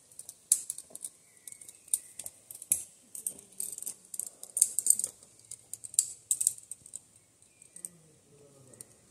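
Metal climbing carabiners clinking irregularly on the climber's harness as he moves, in sharp light jangles that come thickest in the middle of the stretch.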